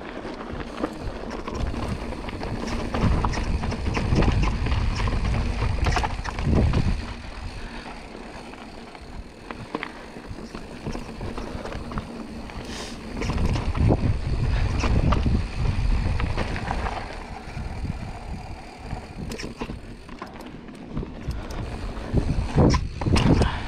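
Wind rumbling on the camera microphone in surges, over tyre noise and scattered clicks and rattles from a Giant Stance 29 2 mountain bike rolling down dry dirt singletrack.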